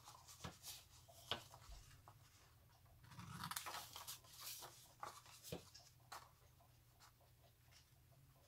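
Faint snips of scissors cutting through folded paper, a few separate snips with a longer rustle of paper about three seconds in.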